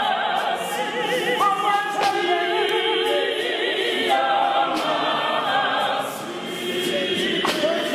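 Mixed choir of men's and women's voices singing a Zion church hymn a cappella, in several parts at once.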